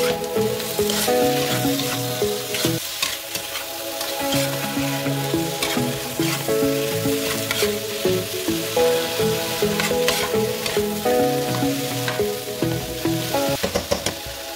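Shrimp and vegetables sizzling in a hot pan while a metal spoon stirs and scrapes them around, with background music playing over it.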